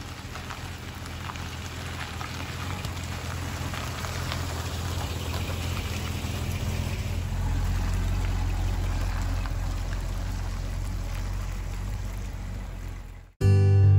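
Steady rain falling, over the low hum of a Dodge Sportsman motorhome's 360 V8 engine that grows louder as it drives past and fades as it pulls away. Shortly before the end it cuts abruptly to loud music.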